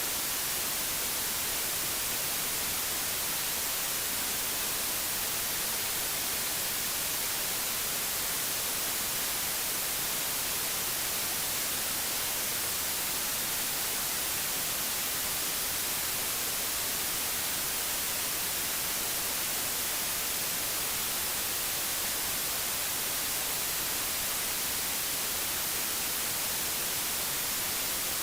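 Pure digital white noise with a flat spectrum: a steady, unchanging hiss, brightest in the treble.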